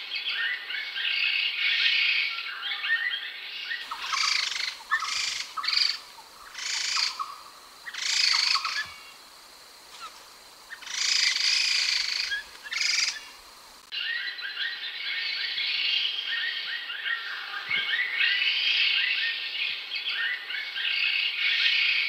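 Khướu đầu xám (khướu đất), a laughingthrush, calling: a dense run of chattering song. About four seconds in it gives way to a series of louder, separate harsh calls with short gaps, and the dense chatter returns near the middle.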